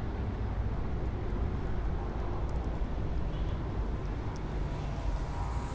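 Wind buffeting the microphone, a steady low rumble, with a faint thin high-pitched whine held steady above it and growing a little toward the end.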